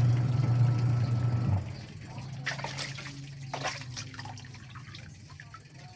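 Running water during a puppy's bath, with a steady hum. It cuts off about a second and a half in, leaving a few scattered drips and small splashes.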